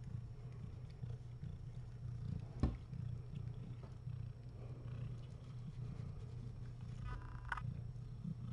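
Cat purring: a steady, low, pulsing rumble, with one sharp click about two and a half seconds in.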